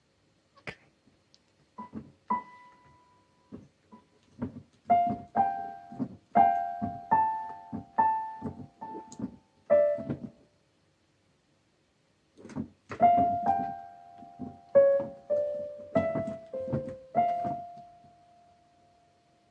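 Electronic keyboard playing single piano notes in a slow melody, in two phrases with a pause of about two seconds between them; the last note is held and fades out near the end.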